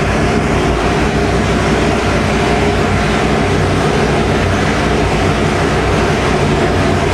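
Roots-supercharged 572 cubic inch big-block Chevy V8 running at a steady speed on the engine dyno, a loud even rumble with no revving.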